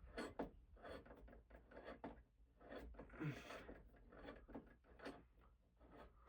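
Faint scattered clicks and taps, with a short scrape about three seconds in, from hands working a ceiling-fan mounting bracket and its screws into a ceiling stud.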